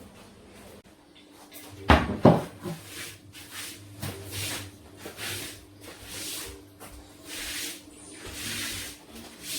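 Kitchen handling sounds at a pot: two sharp knocks about two seconds in, then a run of soft swishing strokes, about one a second, over a faint steady hum.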